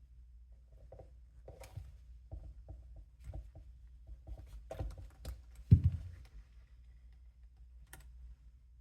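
Small clicks and taps of RC truck parts and tools being handled and fitted together on a workbench, with one louder knock about two-thirds of the way through.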